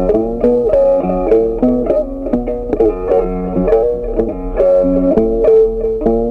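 Background music: a melody of plucked string notes played at a steady pace.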